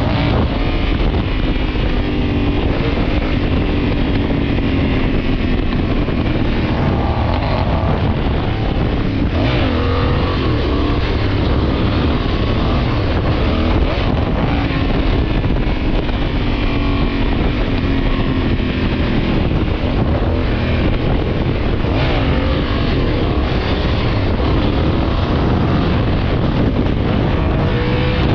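Motorcycle engine running at highway speed, its pitch drifting up and down a few times with the throttle, under a heavy rush of wind on the microphone.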